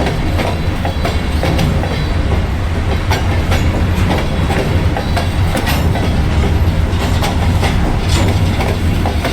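A train rolling past with a steady heavy rumble, its wheels clicking irregularly over the rail joints.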